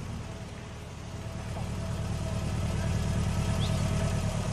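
A small car's engine running at low speed as the car drives up, getting louder as it comes closer.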